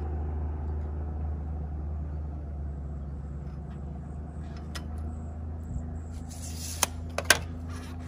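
An engine idling with a steady low hum, with a few sharp clicks near the end.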